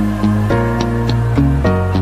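Instrumental background music with a steady beat: changing pitched notes over a held bass.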